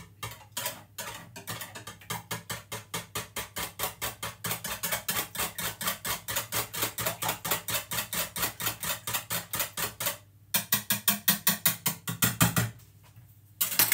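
Balloon whisk beating eggs and milk in a plastic measuring jug, the wires clattering against the jug in a fast, steady rhythm of about six strokes a second. It pauses briefly about ten seconds in, resumes, then stops shortly before the end.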